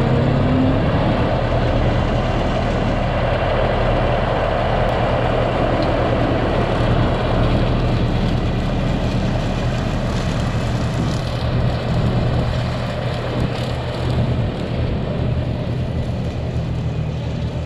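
John Deere 5075E diesel tractor running steadily under load, driving an E12 flex-wing rotary mower cutting pasture: a constant engine drone with the mower's blade noise over it.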